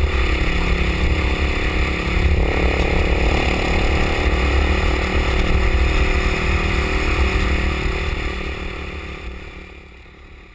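ATK 600 flat-track motorcycle's Rotax single-cylinder four-stroke engine running at a steady road cruise. It fades over the last two seconds as the bike pulls away.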